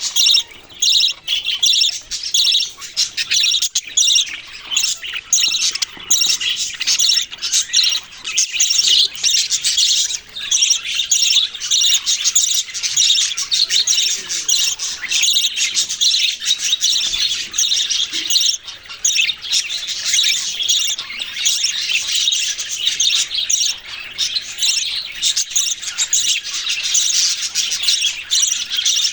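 A flock of small pet birds chirping and chattering continuously, many short high calls overlapping with no pause.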